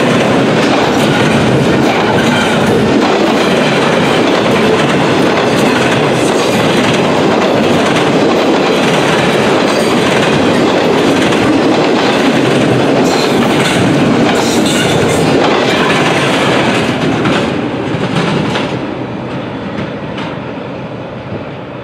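Double-stack intermodal freight cars rolling past: a steady loud rumble with the wheels clicking and clattering over the rails. It fades away over the last few seconds as the end of the train goes by.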